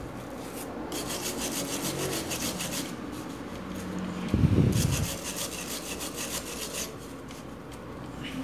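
Green mesh cloth scrubbed back and forth over a TV panel's circuit board, wiping it with thinner to clean off a burnt transistor's marking. The rubbing comes in two spells of quick, even strokes, with a dull bump about halfway through.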